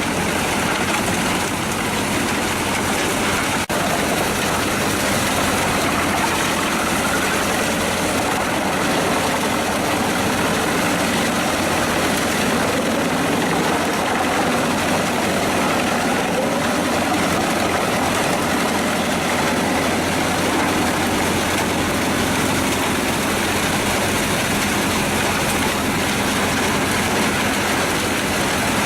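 Pezzolato PTH 900 M drum wood chipper running on its Scania DC09 five-cylinder diesel engine: a loud, steady machine noise.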